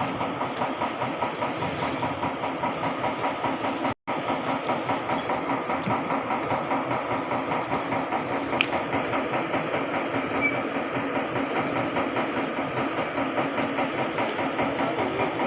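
Dewatering pump machinery at a paddy-field pumping station running steadily, with a regular rapid chugging pulse. The sound cuts out for an instant about four seconds in.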